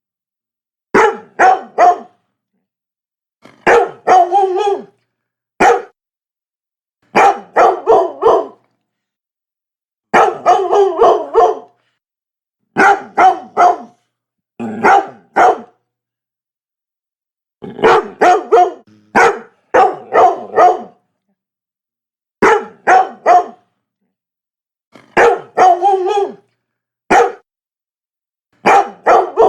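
Labrador retriever barking in quick runs of two to four barks, a new run every two or three seconds, with silence between the runs.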